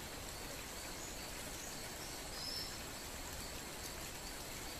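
Quiet, steady background ambience with a faint even hiss and no distinct handling sounds. About halfway through there is a brief faint high chirp.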